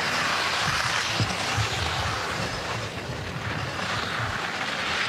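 Steady rushing outdoor noise with irregular low rumbles and thumps underneath.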